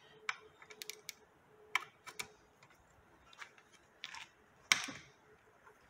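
Irregular metal clicks and clinks of a ratchet and its square drive being fitted into a transmission case plug and worked, with the sharpest clack near the end.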